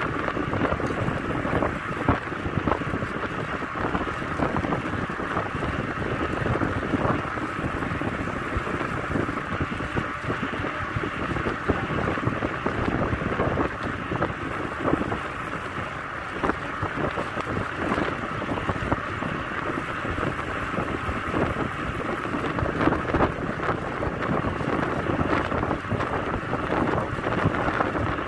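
Wind rushing over the microphone of a camera moving along with a cyclist on the road: a steady buffeting noise.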